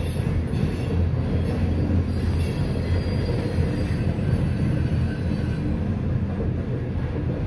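A CSX freight train's open-top hopper cars rolling past, a steady low rumble of steel wheels on rail.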